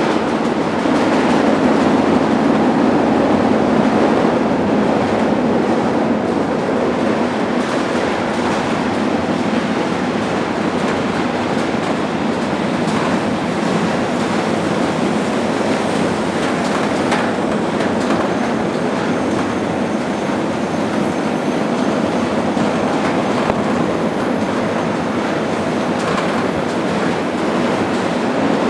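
Freight train heard from aboard a moving car: the steady rumble and rattle of steel wheels rolling on rail, with a few scattered clicks from the rail joints.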